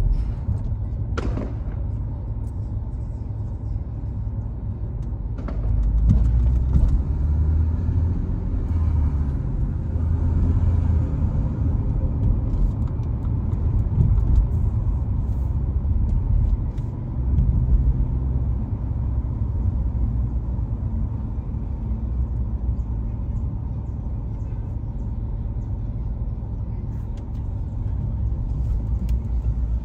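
A car driving on city streets, heard from within it: a steady low rumble of engine and tyre noise that swells a few times.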